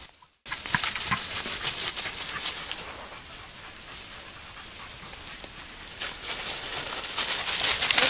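Dry fallen leaves crackling and rustling under a dog's running paws and a person's footsteps, a dense stream of small crunches that grows louder near the end. The sound starts after a brief silent gap.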